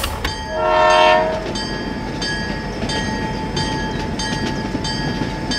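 Toy steam locomotive's horn sounding once for about a second, then its running sound: a steady whine with a regular clatter as it rolls along the track.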